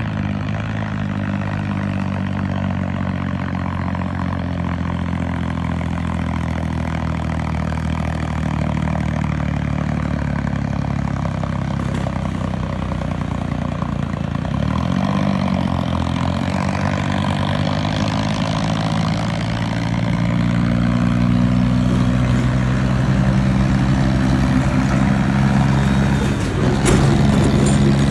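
Farmtrac tractor's diesel engine running steadily under load as it hauls a heavily loaded sugarcane trolley, growing a little louder as it comes closer, with a short burst of noise near the end.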